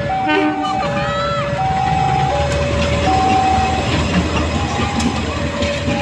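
A two-note warning tone switching back and forth between a lower and a higher pitch, each note held for under a second, over the low rumble of a train.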